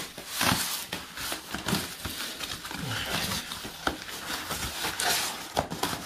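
Stiff brown wrapping paper rustling and crinkling as it is unfolded from around metal legs, with a couple of sharp clicks.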